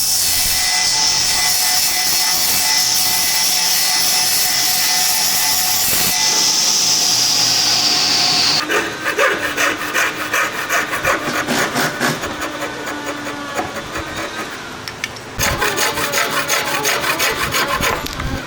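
Wood being worked with tools: a steady hissing run of a power tool on wood, then rapid, rhythmic scraping strokes on wood from about eight seconds in, louder again near the end.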